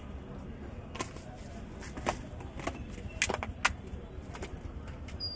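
Scattered light clicks and taps of small glass jars and plastic lids handled while toppings are shaken onto betel leaves, over a low steady background hum.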